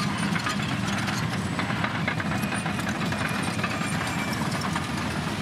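Heavy diesel earthmoving machines working, a steady low engine drone with a fast metallic clatter over it.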